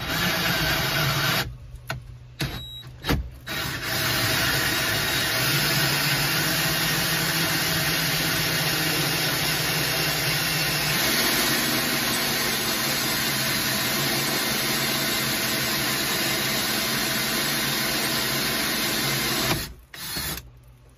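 Cordless drill spinning a 2-inch hole saw through a fiberglass dash. It starts in a few short bursts, then cuts steadily for about sixteen seconds and stops shortly before the end.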